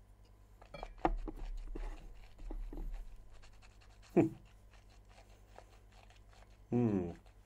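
A stemmed whisky tasting glass set down on a table with a knock and some handling noise, then breathy nosing and sipping sounds, and a short low 'hmm' from the taster near the end.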